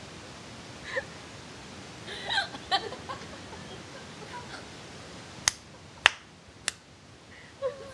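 A person hiccuping: a short voiced hiccup about a second in and a few more around two to three seconds in. A little past halfway come three sharp clicks about half a second apart.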